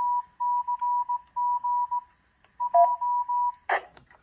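Morse code played as a tone of about 1 kHz, short and long beeps in a steady keyed rhythm, from a Yaesu FTM-500D mobile ham radio. A short lower-pitched beep comes about three seconds in, and a couple of sharp clicks follow near the end.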